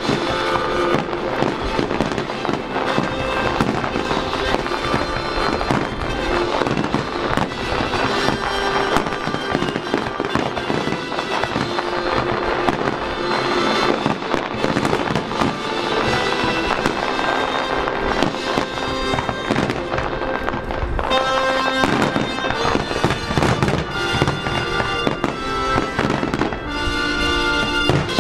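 Aerial fireworks display: a dense, continuous run of bangs and crackling bursts, with music playing alongside. The music's held notes stand out more clearly in the last several seconds.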